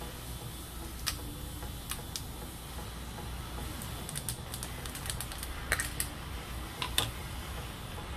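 Irregular light clicks and taps of a spoon and a glass jar of minced garlic being handled, busiest in the middle, over a low steady hum.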